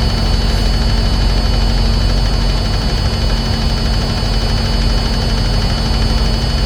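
A diesel engine idling steadily, a constant low rumble with an even hum on top.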